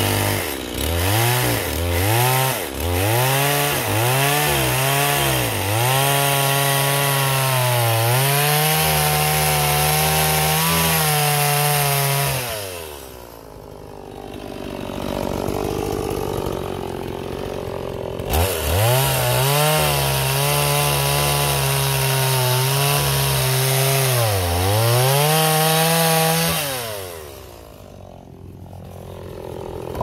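Two-stroke STIHL chainsaw cutting through a log. It is revved in several quick blips, then held at full throttle for several seconds before dropping to idle. About halfway it revs up again for a second cut, dips in pitch once, and falls back to idle near the end.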